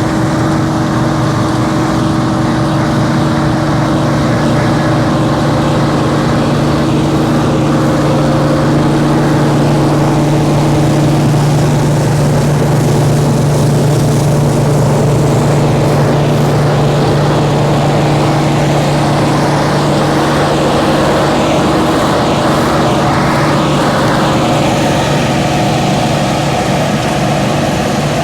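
An old combine harvester running steadily while combining spring barley, with a constant engine drone and hum.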